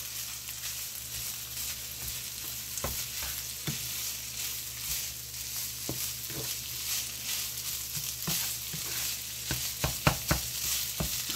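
Crab, onion and garlic sizzling in garlic butter in a skillet, with a slotted spatula scraping and tapping the pan as the mixture is stirred. The spatula taps come more often near the end.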